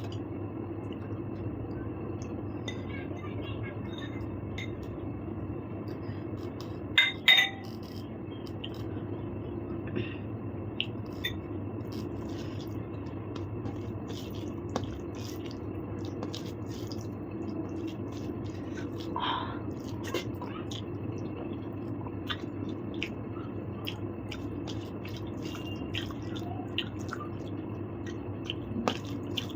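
Eating sounds of scattered small clicks, wet mouth sounds and utensil taps, with a sharper clink about seven seconds in, over a steady background hum.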